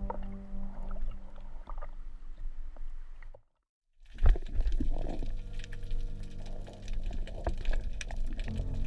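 Water noise picked up by a diver's action camera, at the surface and then underwater, over a steady low hum, with scattered clicks and one sharp knock just after a brief dropout to silence at a cut between clips.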